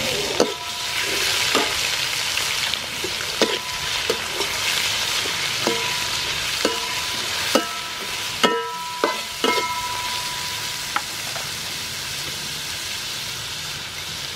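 Scallops sizzling in a hot steel wok while a metal spatula stirs them, scraping and clanking against the pan. About ten short knocks ring out over the steady sizzle, most of them in the first ten seconds.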